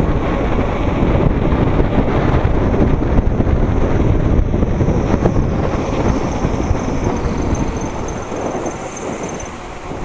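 Wind rushing over the handlebar-mounted microphone of a mountain bike riding fast downhill on an asphalt road, mixed with tyre noise. The rush is steady and eases a little near the end.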